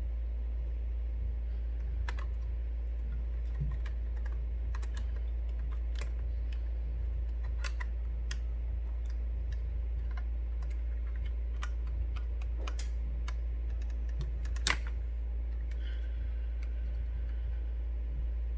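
Scattered small clicks and taps of a screwdriver and small metal parts against an open laptop chassis, the sharpest about three-quarters of the way through, over a steady low hum.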